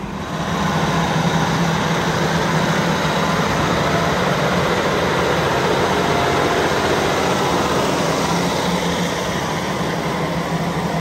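Versatile Delta Track tractor driving on its rubber tracks, its Cummins diesel engine running steadily under the rolling rumble of the track undercarriage on wet gravel. It grows louder about half a second in and then holds steady.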